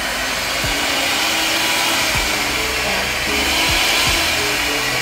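Electric hand mixer with spiral dough hooks running unloaded in the air, a steady motor whir that dies away right at the end.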